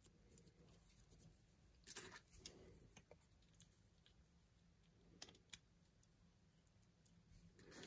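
Near silence with a few faint clicks and rustles of fingers handling a lens mount adapter and pressing a small part onto it.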